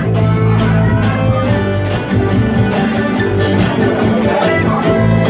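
Rondalla ensemble of acoustic guitars and other plucked strings playing an instrumental passage, strummed in a steady rhythm with sustained melody notes and no singing.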